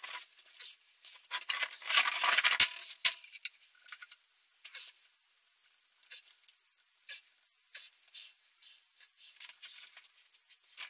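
Clicks, scrapes and rustles of plastic water pipes and fittings being handled. There is a busier stretch of scraping for the first three seconds, then scattered single clicks.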